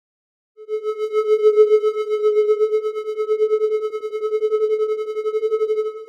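Synthesized sci-fi "energy whistle" sound effect: one steady electronic tone with a rapid fluttering pulse, starting about half a second in and fading near the end.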